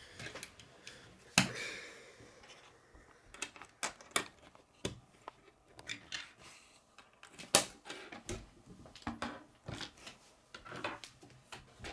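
Plastic K'nex rods and connectors clicking as they are snapped together and handled against a wooden tabletop: irregular sharp clicks and taps, the loudest a little over a second in and again past the middle.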